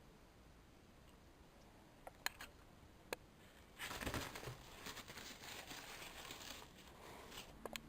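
Faint handling noise: a few sharp clicks, then about three seconds of crinkling, rustling sound, then another couple of clicks near the end.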